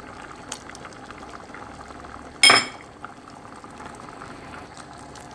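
Ginger-garlic paste sizzling and crackling steadily in hot cooking oil in a nonstick frying pan. A brief louder ringing clink comes about halfway through.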